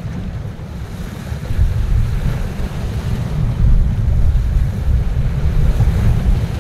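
Wind buffeting the microphone in gusts, picking up about a second and a half in, over the wash of surf.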